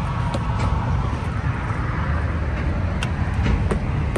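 Steady low vehicle rumble, with a few faint clicks.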